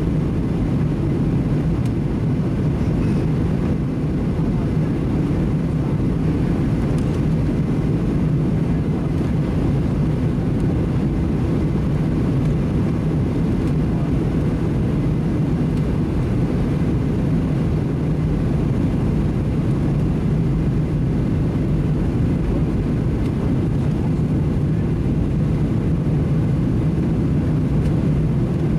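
Steady cabin noise inside a Boeing 737-700 on approach: the hum of its CFM56-7 turbofans mixed with airflow over the fuselage, an even low drone with no touchdown thump or change in level.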